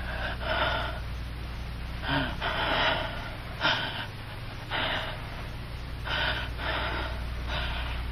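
A bedridden sick man breathing heavily and raggedly: about ten gasping breaths, one roughly every second, some in quick pairs.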